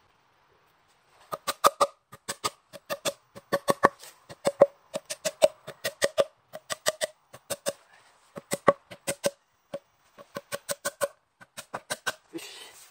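A hammer tapping enoki spawn plugs into drilled holes in a cherry log: rapid sharp knocks with a short ringing note, in runs with brief pauses, starting about a second in. The footage is sped up to double speed.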